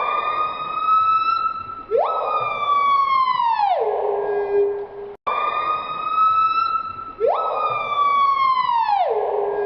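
A loud siren-like wail: one pitched tone that sweeps quickly up, falls slowly and settles into a low held note, over and over. The identical cycle breaks off abruptly about five seconds in and starts again, as a looped recording would.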